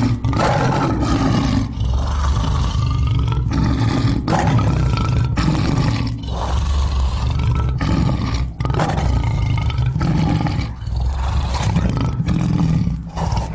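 Recorded lion roaring: a long run of deep, hoarse roars broken by brief pauses every second or two.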